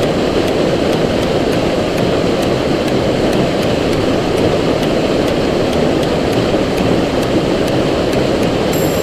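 Rocky mountain stream rushing over a small waterfall: a steady, loud rush of white water.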